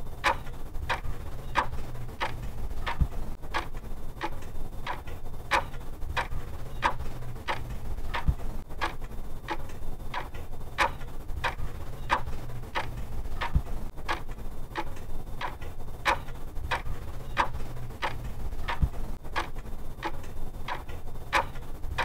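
Clock ticking steadily, about two ticks a second, over a low steady rumble.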